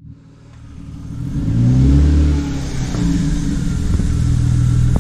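Car engine revving hard, getting louder over the first two seconds as the pitch climbs, then holding at high revs.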